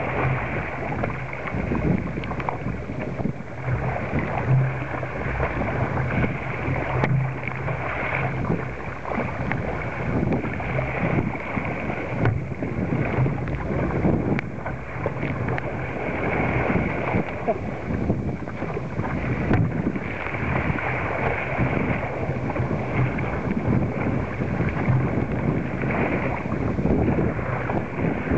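Wind blowing across the microphone and choppy waves splashing irregularly against a sit-on-top fishing kayak's hull as it moves through rough water.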